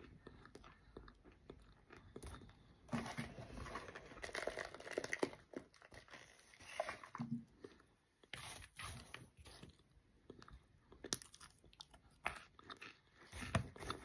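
A person biting and chewing a chunk of microwave-baked cornstarch, a soft, airy crunch that comes in irregular bursts of crackling bites, the densest about three to five seconds in.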